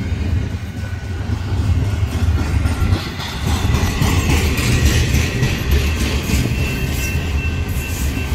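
Double-stack intermodal well cars of a freight train rolling past on steel rails, a steady heavy rumble of wheels on track. A thin, steady high squeal joins in the second half.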